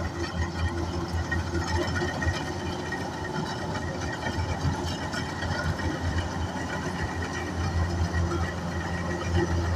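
Kubota DC-105X combine harvester's diesel engine running steadily under load, a continuous low mechanical drone.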